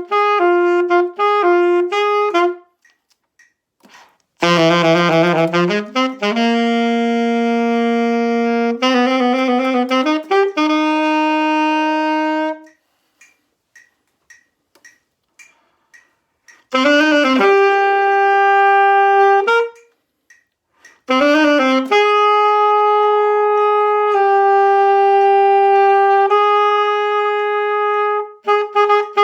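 Solo saxophone playing a melody: a run of short repeated notes, then phrases of long held notes separated by pauses of a few seconds.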